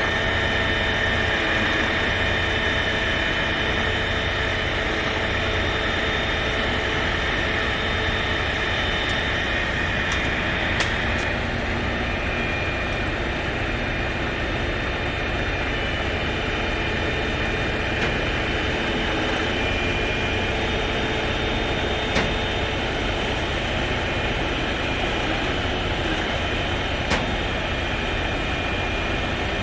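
Crane engine running steadily, with a steady high whine over it and a few sharp clicks.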